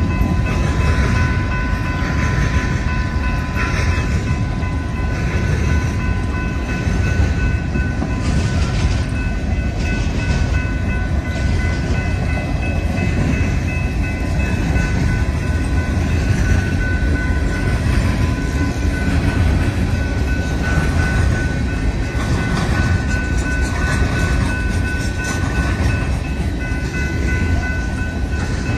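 Empty coal cars of a Union Pacific coal train rolling past: a steady rumble of wheels on rail, with a few thin, steady high tones over it.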